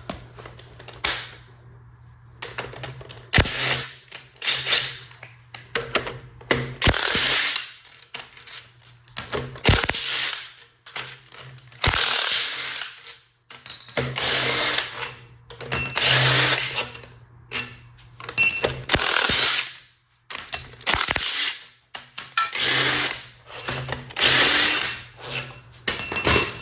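Handheld power tool with a drill-style motor run in about a dozen short bursts of roughly a second each, most starting with a brief rising whine as the motor spins up, in the way that bolts are run out during an engine top-end teardown.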